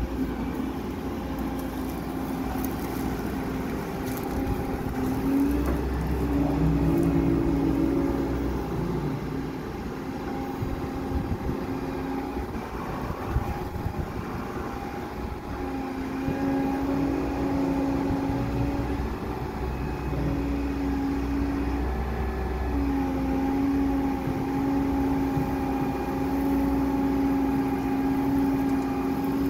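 Diesel engine and hydraulics of an 8-ton Terex wheel excavator running steadily under working load while its rotate bucket spreads gravel. The engine note firms up and eases off several times as the hydraulics take and release load.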